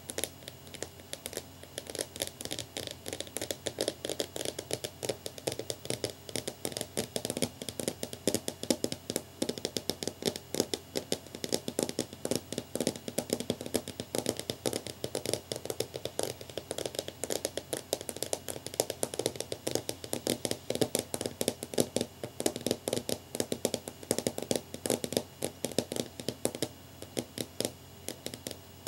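Long fingernails tapping rapidly and continuously on a clear pane, many light clicks a second with no pause.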